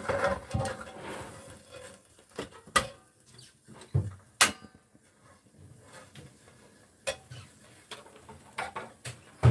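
A frying pan and a metal spatula handled on a portable gas stove: scattered clinks and knocks of metal on metal, the sharpest about four and a half seconds in.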